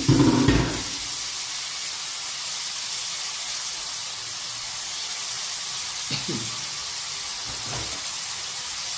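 Chopped tomatoes, chillies, shallots and garlic sizzling steadily in hot oil in an aluminium wok, with a short louder bump right at the start.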